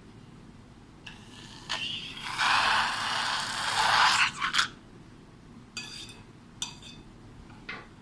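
A rasping scrape lasting about two seconds, with a few short sharp clicks before and after it.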